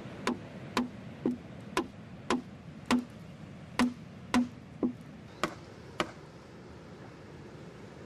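Chopping blows of a hand tool on wood, about two a second, eleven in all, stopping about six seconds in.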